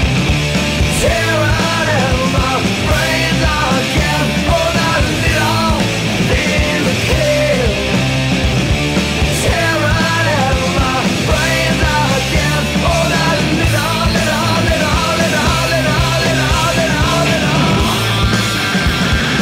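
Loud rock music with a driving drum beat and a wavering lead melody line.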